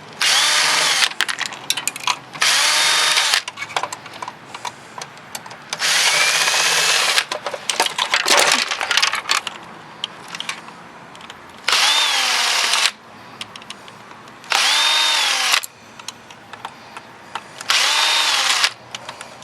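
Power drill backing screws out of an old sewing machine: six short runs of about a second each, the motor's whine rising and falling in pitch, with light clatter of parts between them.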